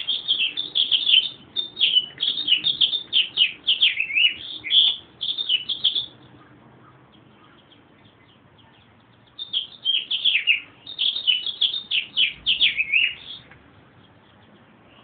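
A meadowlark calling in two long runs of quick, high chattering notes, the first about six seconds long, then a pause of about three seconds, then a second run of about four seconds.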